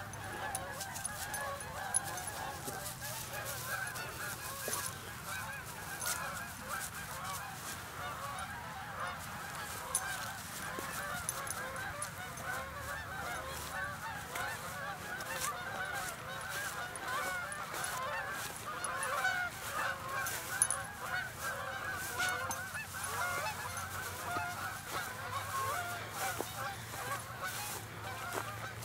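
A large flock of birds calling continuously: a dense, steady chatter of many short overlapping calls.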